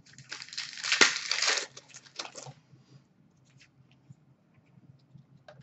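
A trading card pack wrapper crinkling and tearing open for about two and a half seconds, loudest about a second in, followed by a few faint light clicks as the cards are handled.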